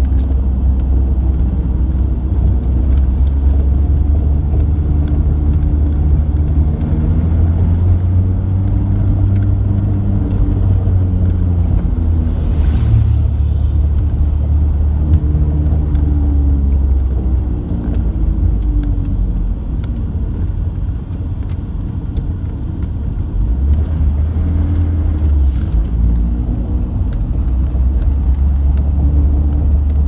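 Engine and road noise heard inside a moving vehicle's cabin: a steady low rumble, with the engine note rising and falling several times as it takes the bends.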